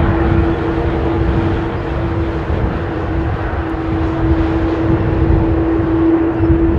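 Boeing 787-9 Dreamliner's turbofan engines running with a steady whine over a low rumble as the airliner rolls slowly along the runway at the start of its take-off, growing slightly louder.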